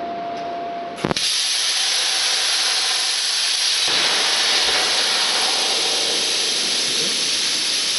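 A loud steady hiss that starts suddenly with a click about a second in.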